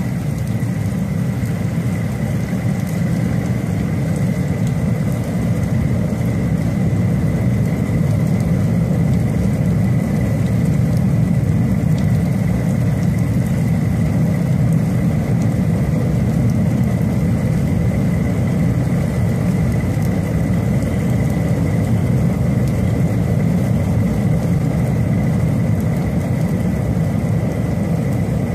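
Strong storm wind buffeting the microphone: a steady, gusty low rumble with a faint steady high whine alongside.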